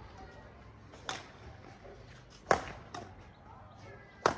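Badminton rackets hitting a shuttlecock back and forth in a rally: four sharp pops, the loudest about two and a half seconds in and near the end.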